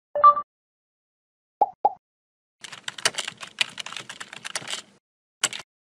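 Computer keyboard typing sound effect: a rapid run of key clicks for about two seconds, as text fills a search bar. It is preceded by a short two-tone blip and two separate clicks, and followed by a single click near the end.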